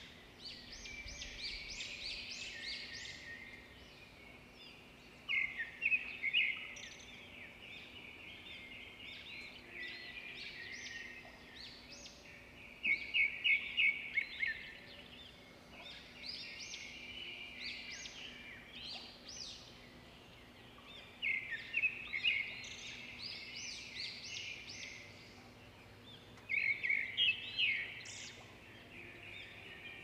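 Small birds chirping and twittering: loud clusters of rapid high chirps every five to eight seconds, with quieter twittering between them.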